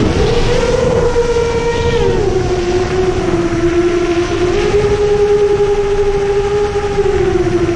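Motors of a 7-inch long-range FPV quadcopter (Brother Hobby 2507 1500KV) spinning triblade props in flight: a steady buzzing whine that steps up and down in pitch with the throttle. It rises right at the start, drops about two seconds in, rises again around four and a half seconds, and drops near the end. A rushing wind noise runs underneath.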